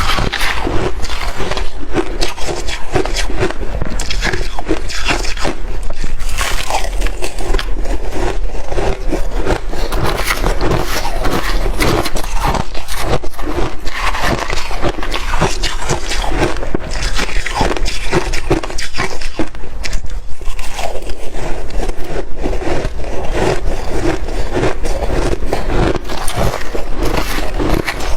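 A person biting and chewing ice, dense crackling crunches packed closely together, with no pause.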